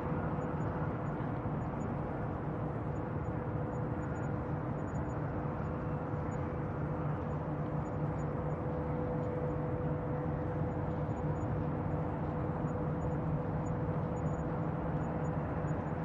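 Bayside ambience: a steady low rumble with a constant mechanical hum, unchanging throughout.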